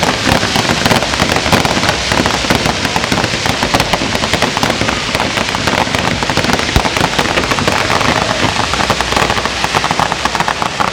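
Ground fireworks fountains spraying sparks, with a loud, dense crackle of rapid pops that eases slightly near the end.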